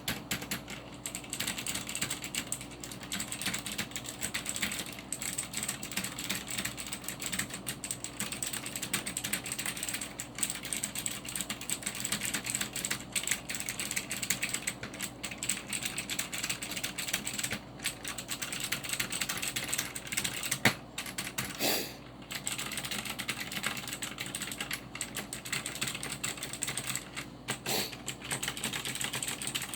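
Continuous fast typing on a Cherry G80-3800 mechanical keyboard with clicky Cherry MX Blue switches, a dense, irregular stream of key clicks. One key strike about two-thirds of the way through is louder than the rest.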